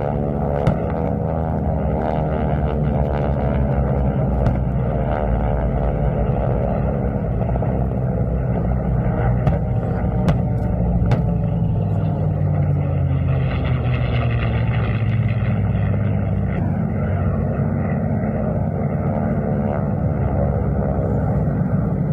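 Piston-engined warbird flying low past, its propeller engine drone sliding down in pitch as it goes by and swelling again later. A few sharp cracks stand out, two of them close together around ten seconds in, from the pyrotechnic explosions of a mock airfield attack.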